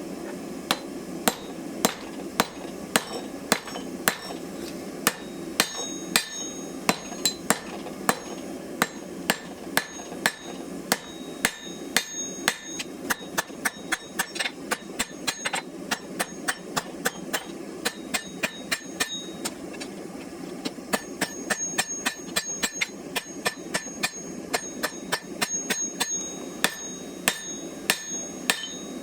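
Blacksmith's hand hammer striking hot steel on an anvil, drawing out the tang of a knife blank: a steady run of blows, about two to three a second, over a steady hum.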